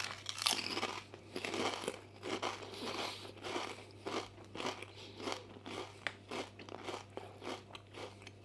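Person chewing a mouthful of thin potato crisps (Lay's cucumber flavour), a run of irregular crunches a few times a second.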